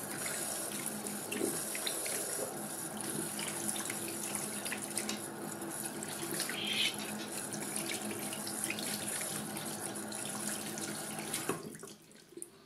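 Water running from a bathroom sink tap, splashing into the basin and over hands rinsing a lump of slime under the stream. The flow stops abruptly about a second before the end as the tap is turned off.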